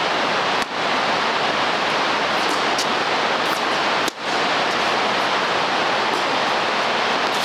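Steady rushing noise with no pitch, briefly dropping out about half a second in and again just after four seconds.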